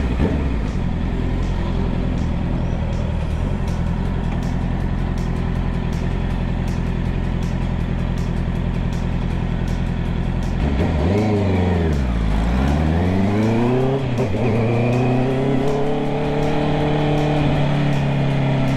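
Honda CB650R's inline-four engine running steadily at road speed. About ten seconds in, the pitch drops sharply as the throttle is rolled off, then climbs again as it accelerates back up.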